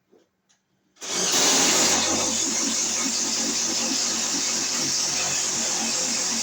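Power drill starting about a second in and running steadily as it bores a hole for the new wiring, loudest just after it starts.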